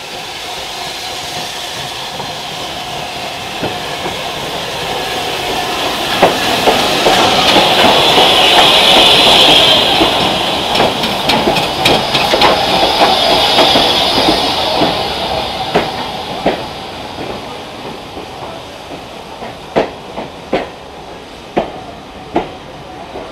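BR Standard Class 5 steam locomotive and its coaches passing alongside: a rumble that builds and fades, with a hiss of steam as the engine goes by. The coach wheels then click over the rail joints about once a second.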